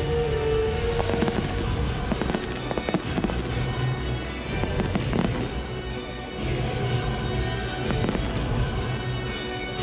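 Aerial fireworks bursting in quick succession, a run of sharp bangs and crackles, with music playing at the same time.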